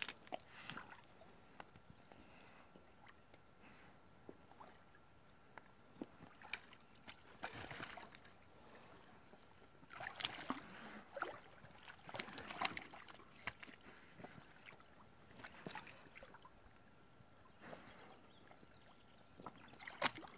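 Water splashing and sloshing in irregular bursts as a dog grips and tugs a beaver in shallow water, heaviest about ten and twelve seconds in.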